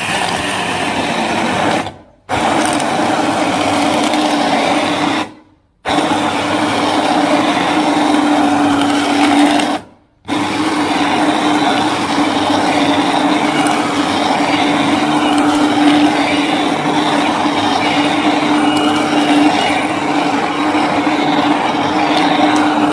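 Sonifer single-speed hand blender running immersed in thin rice porridge, a steady motor whir with a low hum, puréeing the porridge smooth. It cuts out briefly three times, about 2, 5 and 10 seconds in, then runs on.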